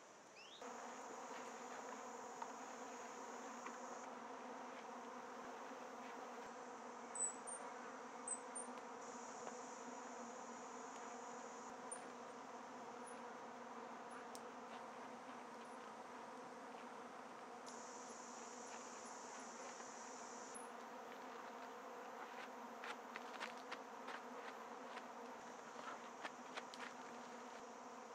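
A steady buzzing hum of flying insects, with a high insect trill that comes and goes three times. A few light knocks and clicks near the end.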